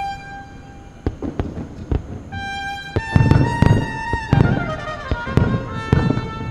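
Fireworks bursting in a run of sharp bangs, thickest in the second half, over orchestral music with strings playing held and falling notes.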